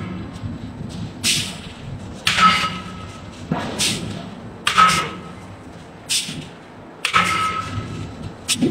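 Power forging hammer striking a red-hot steel workpiece, with about eight blows at roughly one per second. Each blow is a sharp hit with a brief metallic ring.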